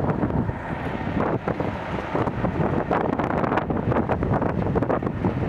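Class 37 diesel locomotive passing close by with its coaches: engine running, with rapid clicks of wheels over the rails and wind on the microphone.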